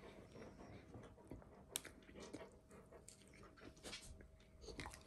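Faint chewing of food, with a few soft crunches and small sharp clicks.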